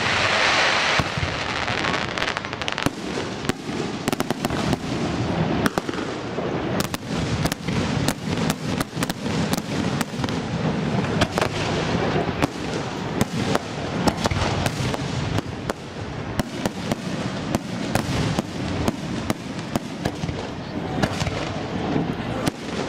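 Aerial firework shells bursting in quick succession: a dense, irregular run of bangs and crackles, with a hissing rush in about the first second.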